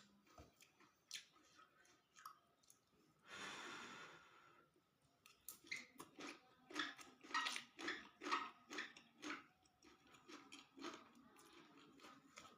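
A person chewing a mouthful of fried rice vermicelli and tofu close to the microphone: a breathy rush about three seconds in, then a run of quick, regular chewing strokes through the middle.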